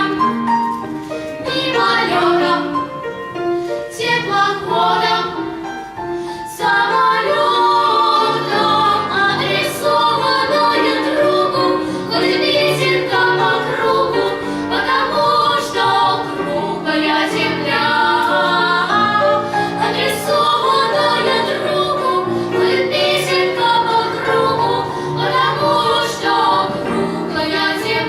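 Vocal performance: singers in song over musical accompaniment, with a brief drop about six seconds in before a fuller, louder passage.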